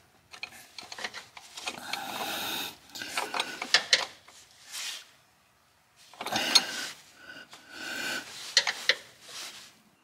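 Scraping and rubbing with a few sharp clicks as a gloved hand works on a newly fitted power steering pressure switch under a car. The noise pauses briefly about halfway through.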